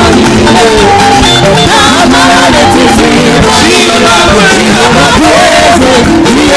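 Church choir and band performing an upbeat praise song: several voices singing over steady drums and accompaniment.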